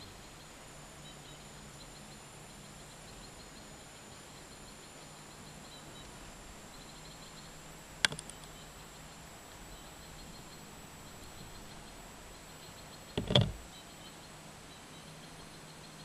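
A sharp click about halfway through, then a louder short cluster of knocks near the end, over a steady quiet outdoor background with faint high ticking.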